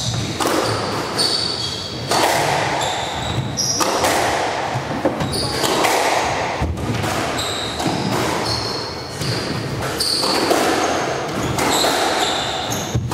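A squash rally: the ball cracks off the rackets and the front wall every second or two, each hit echoing round the court. Between hits, court shoes squeak briefly on the wooden floor.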